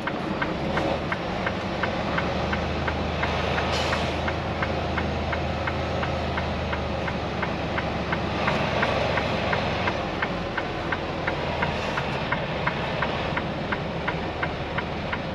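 Semi truck's diesel engine idling steadily, with a regular light ticking about four times a second.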